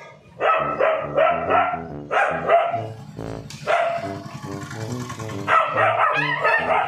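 Several dogs barking in quick runs of sharp barks during a dog fight.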